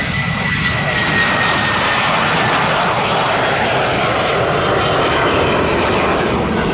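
Jet airliner departing at takeoff power: a loud, steady engine roar with a high whine that falls slightly in pitch over the first couple of seconds.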